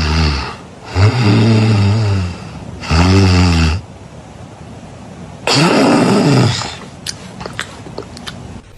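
Exaggerated cartoon snoring sound effects: four loud, low, drawn-out snores, the last with tones sliding up and down. A few faint short clicks follow near the end.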